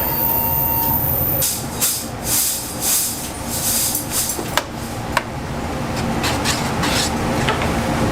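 Restaurant kitchen noise: a steady machine-like hiss with a thin held tone that cuts off about a second and a half in, followed by several surges of hissing and a couple of sharp metallic clicks.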